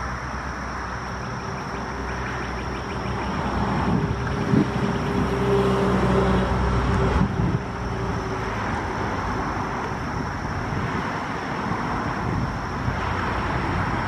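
Road traffic: steady traffic noise, with a vehicle's low engine drone swelling and passing about four to seven seconds in.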